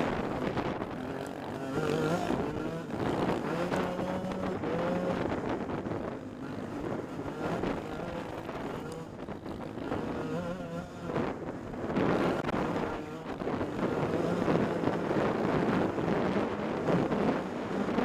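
A 125cc dirt bike engine revving up and down as it is ridden hard along a trail, its pitch rising and falling again and again, with wind rushing over the microphone.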